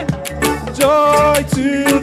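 A live worship band playing with singing: held, sustained sung notes over bass and regular drum hits, in an upbeat, Caribbean-flavoured groove.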